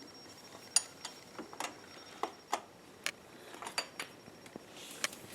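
Light, irregular metal clicks and taps of a hand tool working the nut that holds the battery cable on a Jeep starter's stud, as the nut is tightened down.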